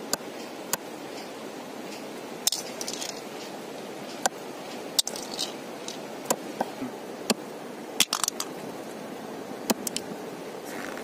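Machete chopping the pointed tips off river snail shells on a wooden board: about a dozen sharp cracks at irregular intervals, over steady background noise.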